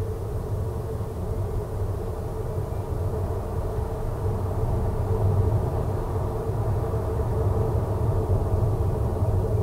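Steady low rumble of a car's road and engine noise, picked up inside the cabin by a dashcam, with a steady drone in the midrange.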